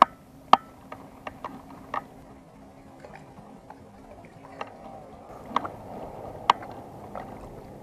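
Small splashes and light clicks in shallow water at irregular intervals as a peacock bass is lowered in by hand and released.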